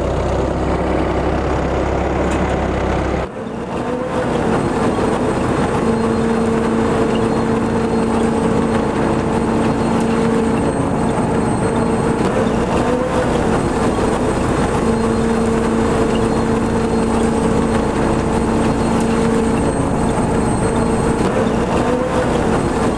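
Tractor-drawn Grimme potato harvester at work: tractor engine and harvester drives running, with soil and potatoes rattling over the conveyor webs. A steady low drone changes abruptly about three seconds in to a busier mechanical rattle with two steady humming tones.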